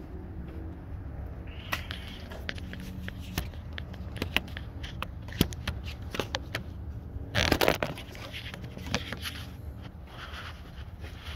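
Irregular clicks and rustling of things being handled, with one louder scraping rustle about seven seconds in, over a steady low hum.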